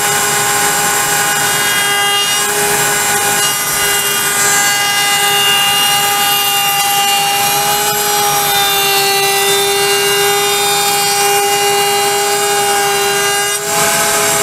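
A router mounted in a Bosch router table runs at full speed while a pine board is fed past the bit. It makes a steady high whine over cutting noise, and the pitch sags a little as the bit takes the cut.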